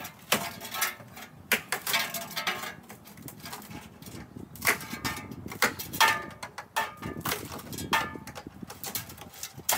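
Pry bar tearing up old floor boards: an irregular run of sharp cracks and knocks, wood splitting and steel striking wood, with a few short creaks.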